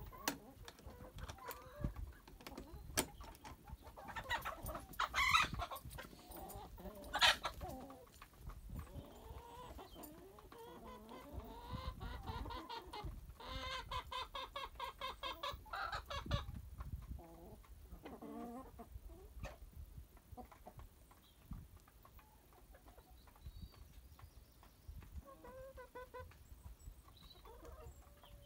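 Chickens clucking, with two loud calls around five and seven seconds in, a fast even run of clucks in the middle, and softer clucks later on.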